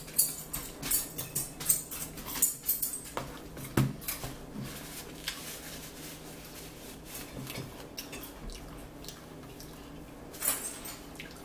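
A fork clinking and scraping on a dinner plate during a meal: a run of sharp clicks in the first few seconds, then quieter handling, with another short cluster of clicks near the end.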